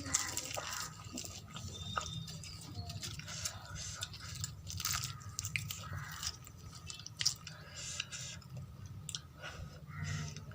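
Close-up chewing of poori and potato curry: soft, wet mouth sounds with many small irregular clicks.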